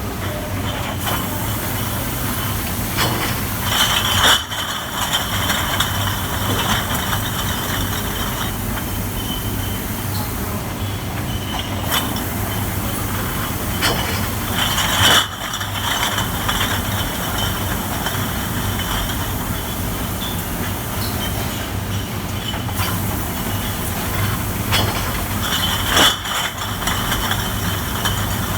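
NATE Athena step bottle washing machine running: a steady mechanical noise over a low hum, with a louder hissing surge about every eleven seconds, three times, each ending abruptly as the machine steps through its cycle. A few sharp clicks come between the surges.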